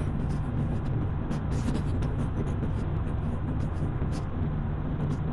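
Car driving steadily: a continuous low engine and road rumble.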